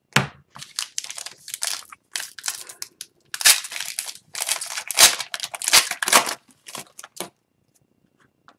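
Upper Deck Series 2 hockey card pack wrapper crinkling and tearing as it is opened, with cards handled. Irregular crackling that stops about seven seconds in.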